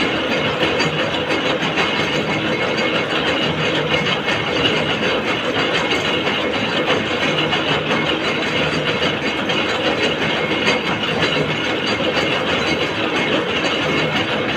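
Gear-cutting machine running steadily with a dense, continuous mechanical clatter.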